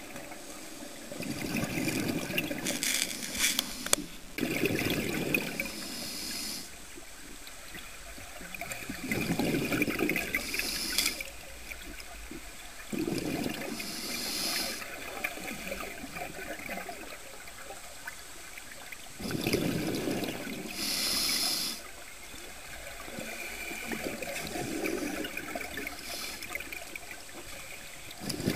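Underwater scuba breathing through a regulator: a hiss on each inhale and a rumbling gurgle of exhaled bubbles. There are several slow breaths, a few seconds apart.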